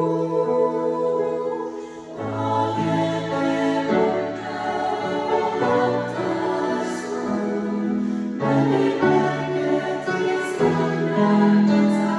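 Women's choir singing held chords that change every second or two, with short breaks about two seconds in and just after eight seconds.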